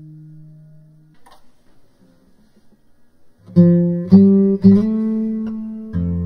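Acoustic guitar music: a held note fades out about a second in, then after a short lull three plucked notes ring out in quick succession, followed near the end by another with a low bass note.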